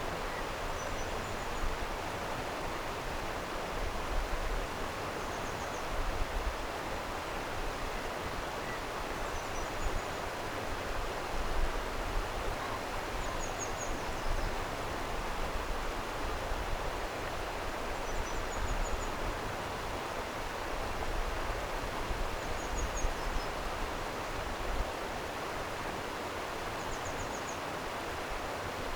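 Stream water flowing steadily. A short, high chirping call repeats about every four seconds over it.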